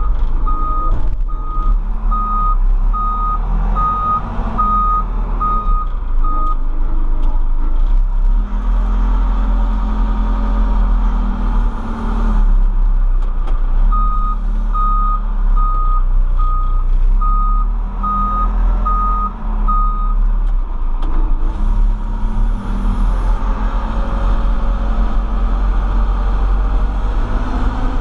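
Case 590 Super M backhoe's four-cylinder diesel engine running under load, heard from inside the cab, its note rising and falling as the machine manoeuvres. A backup alarm beeps about twice a second while the backhoe reverses, in two spells: at the start and again about halfway through.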